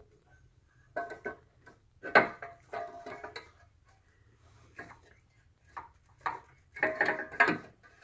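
Metal engine parts and tools clinking and clicking now and then as they are handled and worked loose, each clink ringing briefly.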